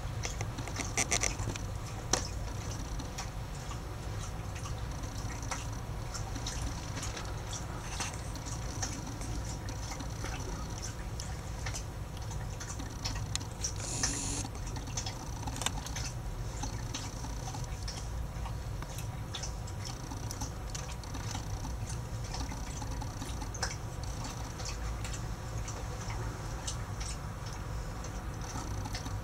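Steady low background hum with scattered small clicks and ticks, and a brief hiss about fourteen seconds in.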